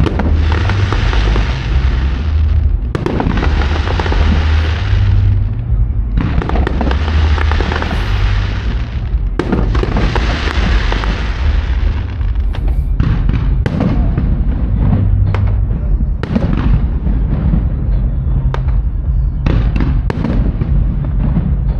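Fireworks display: aerial shells bursting. Four long crackling rushes of two to three seconds each come in the first twelve seconds, then a run of separate sharp bangs, over a constant deep rumble.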